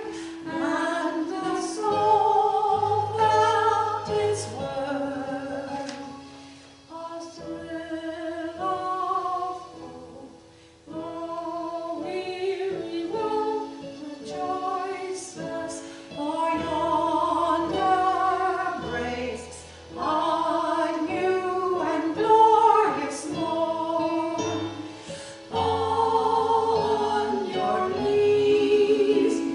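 Two women singing a hymn together with keyboard accompaniment, in sung phrases that briefly soften around a third of the way in.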